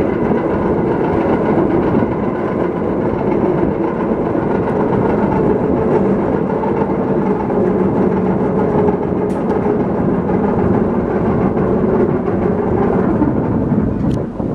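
Machinery running steadily: a loud, even rumble with a faint hum held through it.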